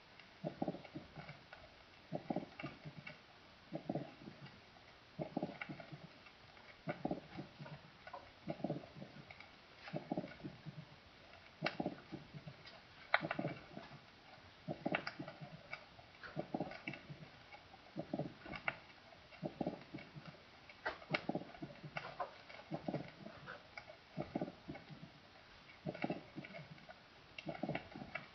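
Recorded heart sounds: low heartbeats repeating about once every second and a half, with a few sharp clicks mixed in.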